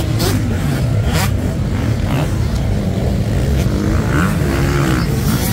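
A pack of motocross dirt bikes racing on a sand track, several engines revving at once, their pitches rising and falling as the riders work the throttle through the jumps.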